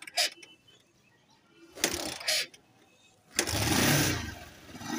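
Motorcycle engine being started: a few short bursts, then about three and a half seconds in the engine catches loudly and settles into running.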